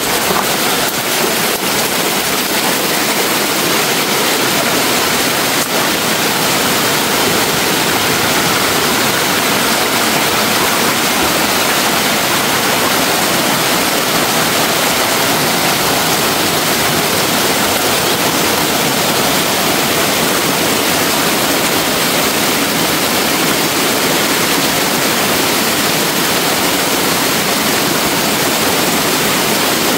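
Steady, loud rush of flowing water from a stream.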